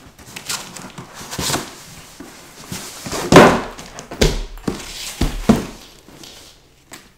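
Cardboard box and fabric carry bag rustling and scraping as the bag is pulled out of the box, with the loudest scrape about three seconds in. Two dull thumps follow as the bag is set down on a wooden floor.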